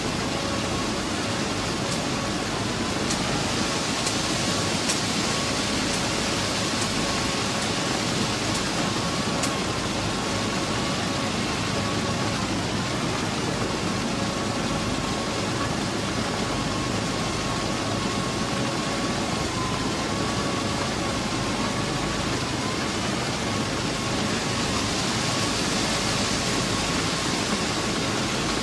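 Plasser & Theurer PM 1000 URM formation rehabilitation machine at work: a steady, loud din of its machinery and conveyors moving ballast and gravel, over which runs a steady whine that dips slightly in pitch now and then. A few faint ticks come in the first ten seconds.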